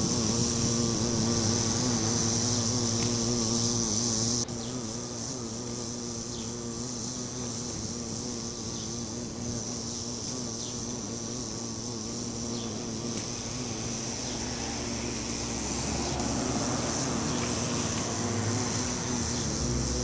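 Bumblebees buzzing at close range as they forage on a sunflower head: a steady low wing buzz that wavers slightly in pitch. Behind it runs a steady high-pitched hum that drops in level suddenly about four seconds in.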